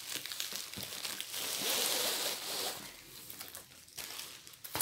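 Plastic wrapping rustling and crinkling as a rolled diamond-painting canvas is handled and unrolled. The rustling comes in waves, swelling in the middle, easing off briefly, then picking up again near the end.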